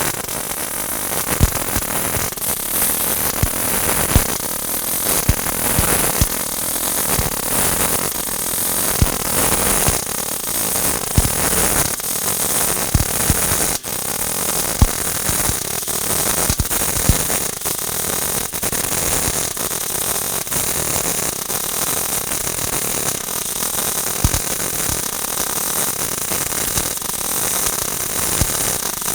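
MIG welding arc on solid (hard) wire at about 18.5 volts, burning steadily with a dense crackling hiss and frequent sharp pops.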